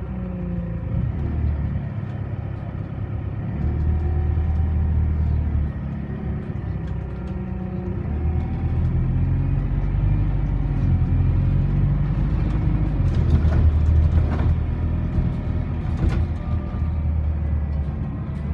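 Alexander Dennis Enviro400 double-decker bus heard from inside the upper deck while driving: a steady low engine and drivetrain drone that steps up and down in pitch as the bus changes speed. Body rattles run under it, with a few sharp knocks near the end.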